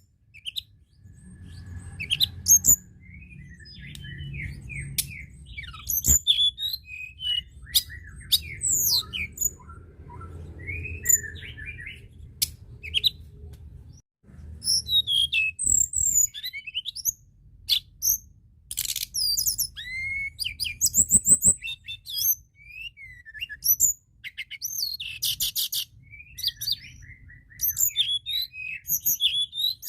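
A tledekan gunung songbird singing busily: a rapid, varied run of sharp chirps, whistled glides and quick trills with hardly a pause. A low rumble runs beneath the song for much of the time.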